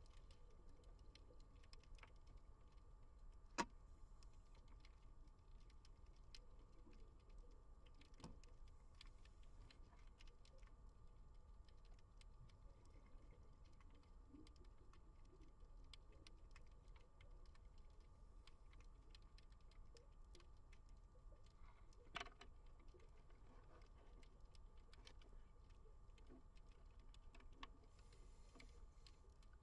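Near silence: faint underwater ambience of scattered small clicks and ticks over a low rumble. A sharper click comes about three and a half seconds in, and another about twenty-two seconds in.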